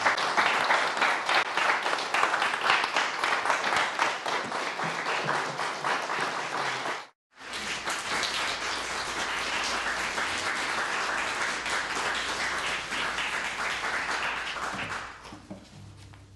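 Audience applauding. The clapping cuts off abruptly for a moment about seven seconds in, then carries on and dies away near the end.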